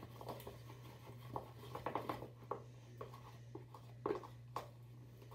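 A utensil stirring and scraping a thick, sticky flour-and-water paste in a plastic party cup, with irregular taps and clicks against the cup's sides, the loudest a little past four seconds in. A steady low hum runs underneath.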